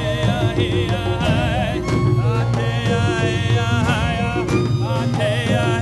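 Celtic-Native American fusion music: a melody with strong vibrato over a steady low accompaniment.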